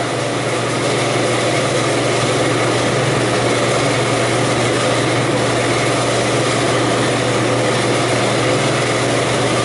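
Walk-in cooler evaporator fans running steadily: an even rush of moving air over a low, constant motor hum.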